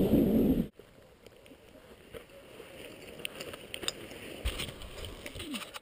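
Wind buffeting the camera microphone, a loud low rumble that cuts off abruptly under a second in. After it, only faint rustling with scattered soft clicks.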